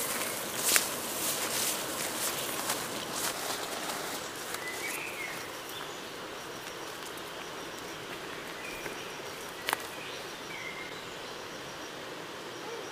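Outdoor woodland ambience: a steady hiss with several short bird chirps and a faint, high, evenly ticking insect-like trill. A few sharp clicks stand out, the loudest just after the start and about ten seconds in.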